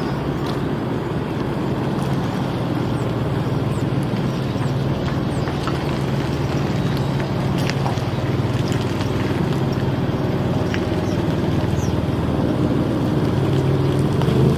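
A truck engine running steadily, a low drone whose pitch shifts a little now and then, with a few faint ticks over it.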